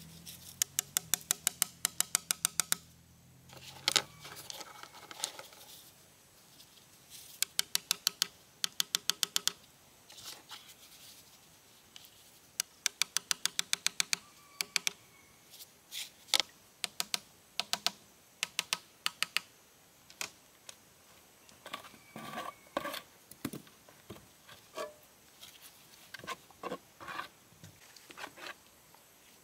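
Sharp clicks: three quick runs of evenly spaced clicks, about five a second, then scattered single clicks and taps.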